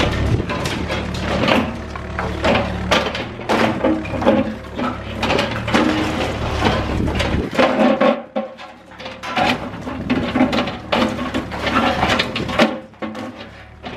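Cat 305E2 mini excavator running while breaking up a gunite and steel-reinforced building, with dense, irregular knocks and clatter of concrete and metal debris. The machine's low drone fades out about halfway through while the clatter continues.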